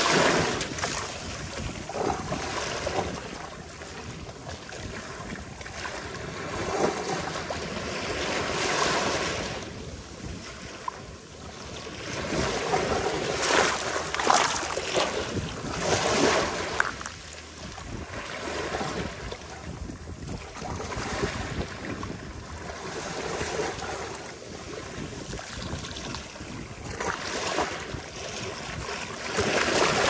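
Ocean surf breaking on a sandy beach: a continuous rush of water that swells with each incoming wave and falls back every few seconds.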